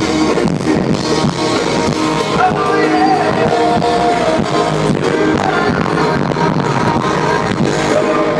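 Live pop-rock band performance with sung vocals over guitar and drums, playing continuously at a steady loud level.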